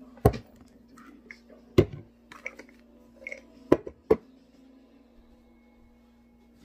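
Bottles and other small items handled and set down close to the microphone: four sharp knocks with softer taps and rustles between them, over a steady low hum.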